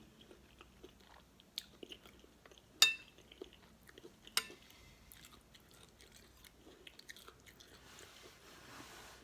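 Close-miked chewing and soft mouth sounds of someone eating beef stew, with small wet clicks. Two sharp clinks with a short ring break in, one about three seconds in and one about a second and a half later.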